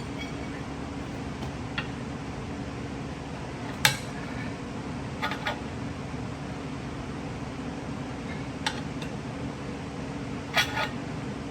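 Steel tire irons clinking against a small golf cart wheel rim as a tire is levered onto it: a handful of sharp metal clinks, the loudest about four seconds in and a quick pair near the end, over a steady low hum.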